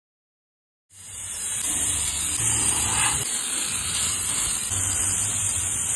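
Handheld steam cleaner jetting pressurised steam: a steady loud hiss over a low machine hum, starting abruptly about a second in.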